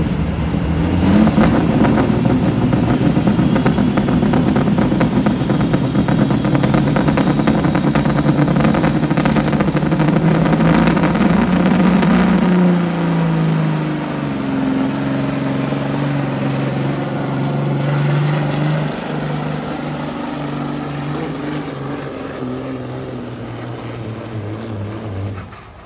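Semi truck's diesel engine working hard under load while pulling a weight-transfer sled, with a high whine that climbs steadily in pitch over the first half. About halfway through the engine note drops and wavers, and the sound fades gradually toward the end.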